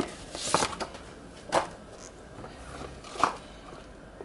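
Cardboard packaging being handled: three short scraping rustles as a cardboard inner box slides out of its printed sleeve, about half a second, a second and a half and three seconds in.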